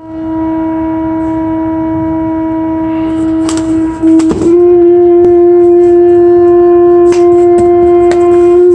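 A loud, steady, unbroken tone comes from something inside a package, with a few handling knocks. About four seconds in it becomes louder and a little higher.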